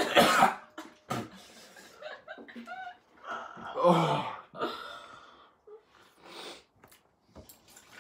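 A woman laughing and gasping, starting with a sharp noisy burst of breath, then short broken laughs and a drawn-out 'oh' about four seconds in.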